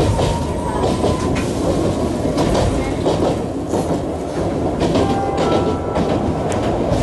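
Train running over a railway bridge, heard from inside the carriage: a steady rumble with the wheels clicking over the rail joints.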